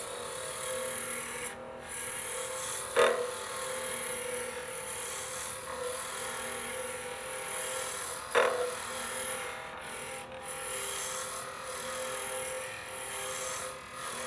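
Wood lathe spinning pen blanks on a mandrel at around 2,000 rpm while a spindle roughing gouge cuts them: a steady scraping hiss of the cut over the lathe's hum. Two short, sharp, loud knocks stand out, about three seconds in and about eight seconds in.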